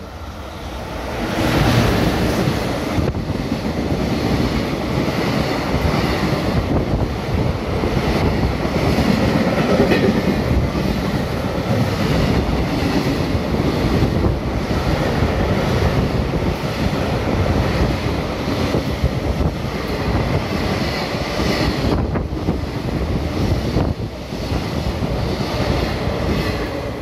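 JR Freight EF210 electric locomotive hauling a long container freight train through the station at speed. It gets loud about a second in and stays loud as the wagons go by, with repeated clacks of wheels over rail joints.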